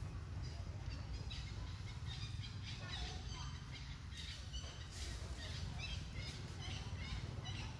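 Small birds chirping repeatedly in short, quick calls over a steady low rumble.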